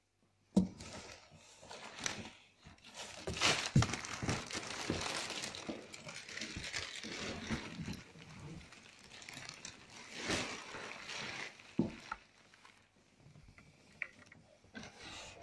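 Clear plastic packaging bags crinkling and rustling as parts are handled inside a cardboard box, with a sharp knock about half a second in and a few more knocks and scrapes.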